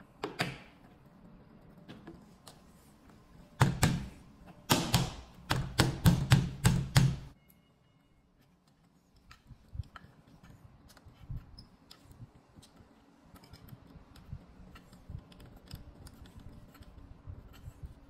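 Sharp knocks and clicks from a door handle being fitted to an aluminium door frame, with one knock at the start and a dense run of loud knocks in the middle. Then light, scattered ticks as a thin hex key turns the screw under the handle.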